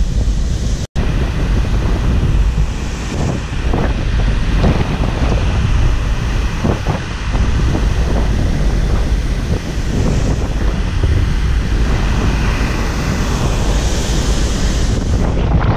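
Strong wind buffeting the microphone, a dense low rumble, over the wash of breaking surf. The sound cuts out for an instant about a second in.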